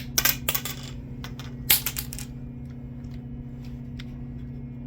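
Sharp metallic clicks from a ratcheting PEX crimp tool being handled: a quick run of clicks in the first second and another about two seconds in, then a few faint ticks, over a steady low hum.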